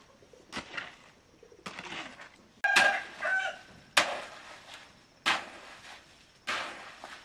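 A hoe scraping and slapping through a pile of wet concrete mix, six strokes a little over a second apart. Near the middle a bird gives a short two-note call.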